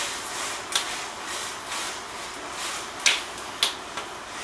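Wood fire crackling in a fireplace firebox: a few sharp pops over a soft, steady rushing noise.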